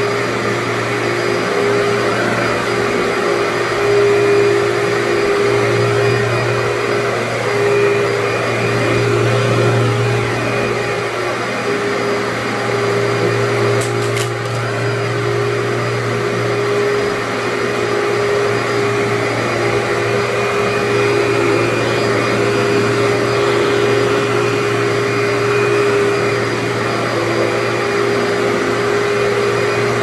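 Commercial upright vacuum cleaner running steadily as it is pushed back and forth over carpet, pulling dry soil out, with a constant low motor hum and a steady higher whine. A brief click about halfway through.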